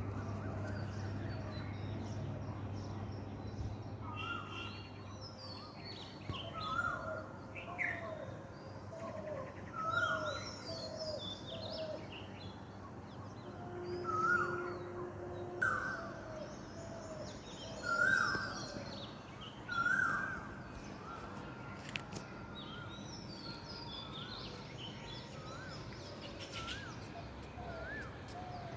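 Several birds calling and chirping, with short notes repeated over and over and louder clusters of calls in the middle. A low hum is heard under them in the first few seconds.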